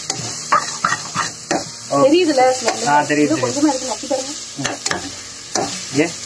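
Onions and chilli masala sizzling as they fry in an aluminium pressure cooker, stirred and scraped with a metal spatula that knocks against the pot's sides.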